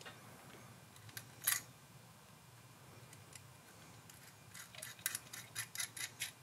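Faint small metal clicks as a brass nut and lock washer are threaded by hand onto a speaker binding post's stud: one click about a second and a half in, then a quick run of light ticks near the end.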